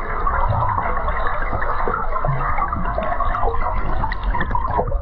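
Water heard through a camera held underwater: a steady, muffled rush of water and bubbling, scattered with small clicks.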